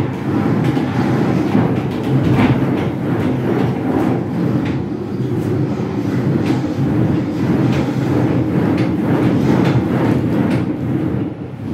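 Earthquake simulator running: a loud, steady low rumble with many knocks and rattles running through it.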